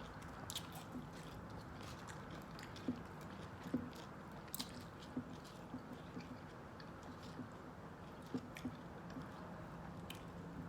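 Close-up chewing of a salad: wet mouth sounds with scattered short crunches.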